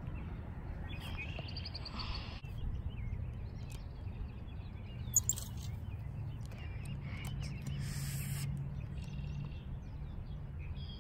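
Birds chirping and calling off and on over a steady low rumble, with one sharp click about five seconds in.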